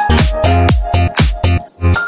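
Electronic dance music in a house style: a fast, steady beat with heavy bass and short synth notes, and a high synth tone that begins gliding downward near the end.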